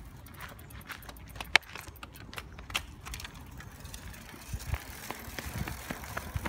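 Mountain bike rolling over cobblestones: a run of short clicks and rattles from the bike, with one sharp click about one and a half seconds in and a few low thumps near the end.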